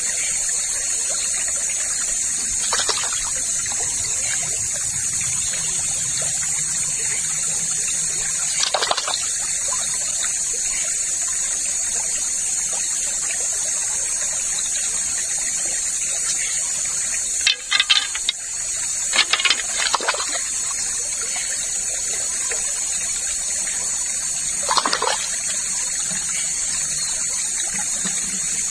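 Steady rush of a shallow river flowing over stones, with a few short clicks and knocks, several close together about two-thirds of the way in.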